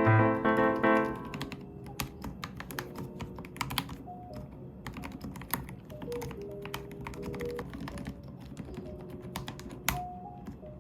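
Typing on a MonstarGear Ninja 108 PRO full-size mechanical keyboard fitted with low-noise linear switches: a run of irregular key strokes, several a second, with one stronger stroke near the end.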